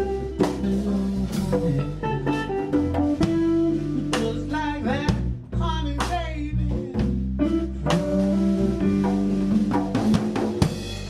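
Background music: a band with electric guitar and drum kit in a bluesy style.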